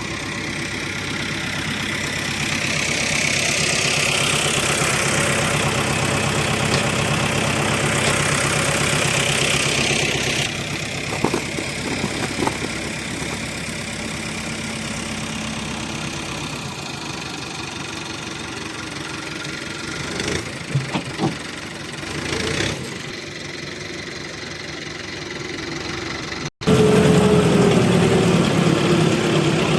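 Hyundai excavator's diesel engine running, growing louder under load for several seconds, then easing back, with a few short knocks in the middle. After an abrupt break it is louder again, with a tone sliding slowly down.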